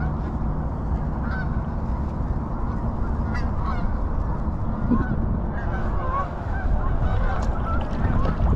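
A flock of Canada geese honking repeatedly, the calls coming more often in the second half, over a steady low rumble.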